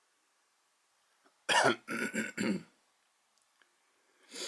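A person coughing and clearing their throat close to the microphone: a quick run of three coughs about one and a half seconds in, then a shorter, softer one near the end.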